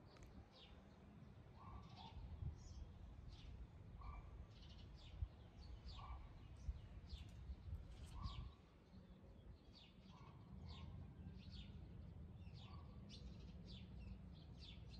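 Small birds chirping faintly: many quick high chirps, with a lower short call repeating about once a second, over a low rumble that eases a little about eight and a half seconds in.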